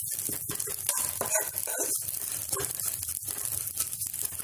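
Dry vermicelli roasting in hot ghee in a kadhai while a steel spoon stirs it quickly: a steady crackling, rustling noise with irregular scrapes of the spoon against the pan.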